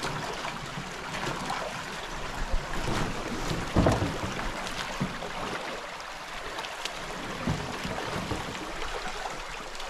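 Shallow creek water running over rocks, with splashing as a person wades through it dragging a loaded canoe, and a few dull thumps, the loudest about four seconds in.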